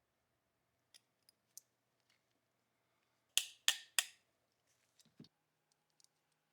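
Small metal parts clicking, with three sharp metallic clicks or taps about a third of a second apart near the middle, each with a brief ring, and lighter clicks before and after. These are the sounds of handling or reassembling the revolver's steel parts.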